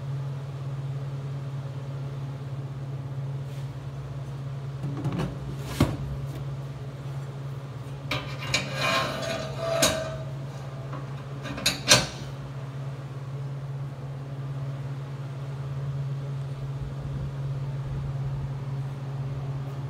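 A plastic fuel jug is set into a sheet-steel rack and a steel locking bar is fitted across its handle: a few knocks, then a burst of metal clatter and a sharp click about halfway through, over a steady low hum.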